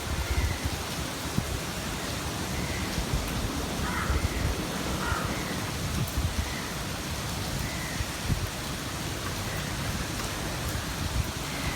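Steady rain falling, an even hiss with no break, over uneven low rumbling bumps.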